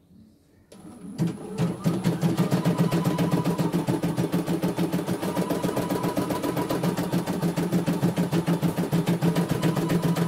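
CNY E900 computerized embroidery machine starting up about a second in and then stitching steadily, with a fast, even needle rhythm at its 650 speed setting.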